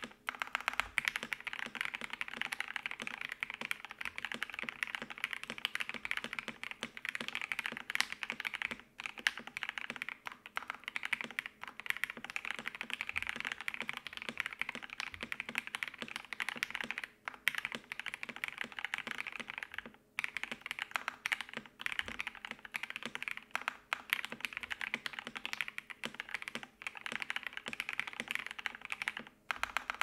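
Fast, continuous typing on a KBD67lite R3 mechanical keyboard with lubed Gateron Milky Top Yellow linear switches, a polycarbonate plate and PBT keycaps. The keystrokes run together densely, broken by a few brief pauses.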